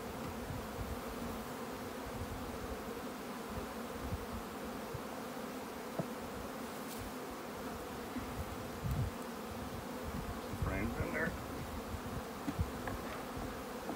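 Honeybees from an opened nuc buzzing in a steady hum, with a few soft knocks as wooden frames are handled.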